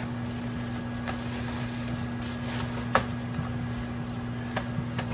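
A plastic spoon stirring and scraping crumbled sausage and cream cheese in a nonstick frying pan, with a few sharp clicks of the spoon against the pan, the loudest about three seconds in, over a steady low hum.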